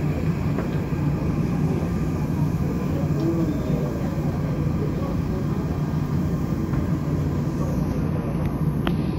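Seoul Subway Line 7 train heard from inside the car as it runs into a station and slows: a steady low rumble of wheels on rail and running gear.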